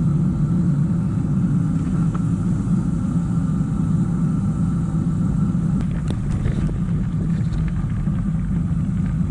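Steady low rumble of wind on the microphone and tyre noise while a Trek 1120 bikepacking bicycle is ridden, with a few faint ticks about six seconds in.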